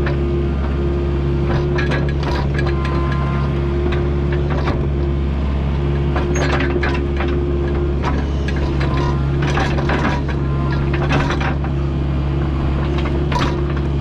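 Kubota U55-4 mini excavator working: the diesel engine runs steadily under a constant hydraulic whine, with frequent short clanks and scrapes from the bucket and tracks working dirt.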